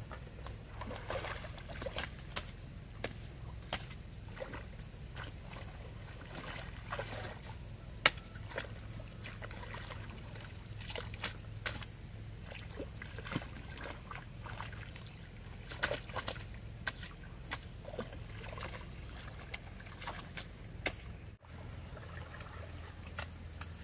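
A hoe working wet mud in a flooded rice paddy to build up the field's earthen edge: irregular wet slaps, squelches and scrapes of the blade in mud and water, with a thin steady high tone behind them.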